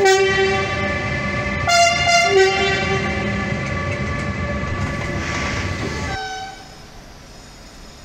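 Electric locomotive horn giving two short blasts about two seconds apart as a driver's greeting, the second stepping from a higher note to a lower one. Between and after them the departing electric locomotives run with a steady whine until it cuts off about six seconds in.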